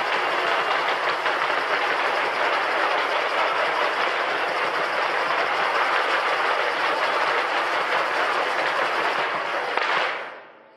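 Drum circle: many people playing hand drums and other percussion together, a dense steady clatter of fast hits that fades out near the end.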